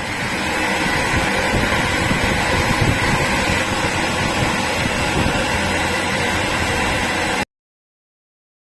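Vacuum pump for a CNC cutting table's vacuum hold-down running steadily as it clamps stacked foam sheets to the bed. It builds up over the first moment, then cuts off abruptly about a second before the end.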